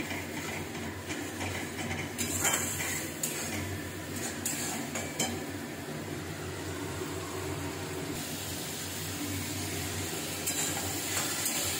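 Metal spatula scraping and clinking against a kadai now and then as a tomato and spice masala is stir-fried over a high gas flame, with a steady sizzle underneath. The paste is being fried down (koshano) until the oil separates.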